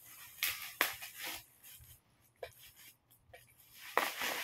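Black plastic wrapping crinkling and rustling as it is pulled open by hand, in irregular scratchy bursts with a quieter stretch in the middle and a louder rustle near the end.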